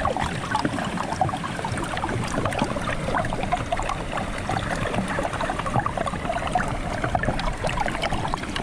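Stream water flowing under a layer of frozen ice, gurgling steadily with many small quick bubbling sounds over a low rumble.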